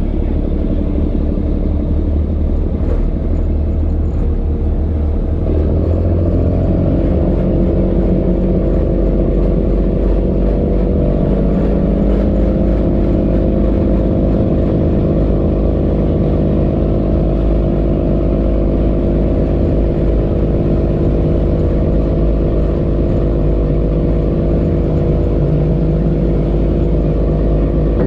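Fishing boat's engine running steadily under way, speeding up about five seconds in and then holding its pace, with a low rumble.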